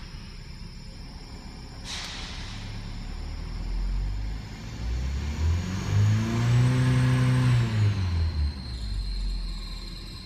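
Skoda Rapid's 1.4 TSI (CZCA) turbocharged four-cylinder petrol engine heard from the cabin: idling, then revved once to about 3000 rpm, held for a second or so and let fall back to idle. A brief hiss comes about two seconds in.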